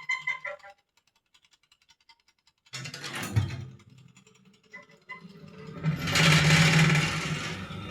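Chaika-2 washing machine starting up about three seconds in: a motor hum with water noise that grows into a louder, steady run with rushing water from about six seconds.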